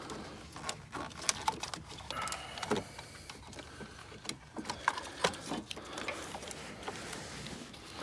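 Hands working wiring and plastic parts under the hood, making scattered small clicks, taps and rustles at irregular intervals, with clothing brushing against the camera.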